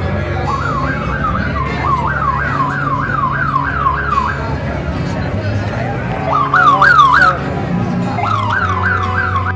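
A siren yelping in bursts, a fast rising and falling wail about three times a second: one long burst, then two short ones in the second half. Beneath it a low steady rumble of passing car engines.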